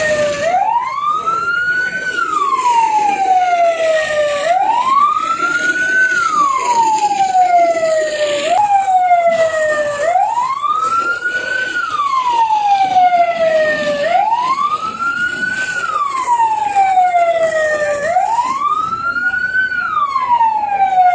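Emergency vehicle siren sounding a slow wail, its pitch rising and then falling in a smooth cycle that repeats about every four seconds.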